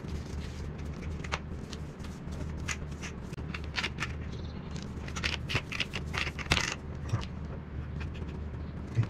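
PTFE thread-seal tape being pulled off its roll and wrapped around the threads of a steel pipe fitting: a run of short, crackly, scratchy rustles, mostly in the middle of the stretch, over a steady low hum.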